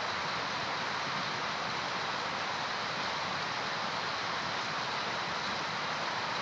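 Steady heavy rain falling on trees and garden vegetation, an even, unbroken hiss.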